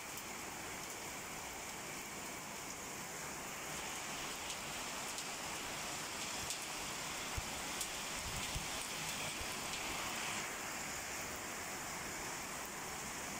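Heavy rain pouring down in a steady hiss, growing a little heavier from about four seconds in until about ten seconds, with a few sharp ticks scattered through the middle.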